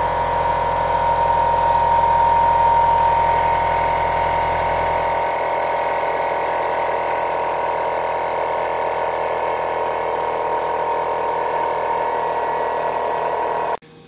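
Air compressor of a Coaler Systems train-horn kit running steadily, pumping up its air tank as the pressure builds. It makes a continuous whining hum and cuts off suddenly near the end.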